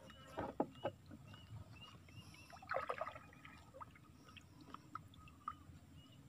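A small boat being paddled with a long-handled wooden paddle: faint knocks and dips of the paddle, a few about half a second in and a louder cluster about three seconds in.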